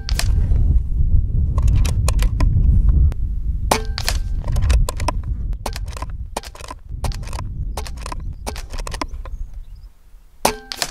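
Air Venturi Avenger .25-calibre PCP air rifle shooting a string of shots: a series of sharp cracks and clicks a second or so apart, the loudest at the start and near the end. Heavy wind rumble runs on the microphone under them.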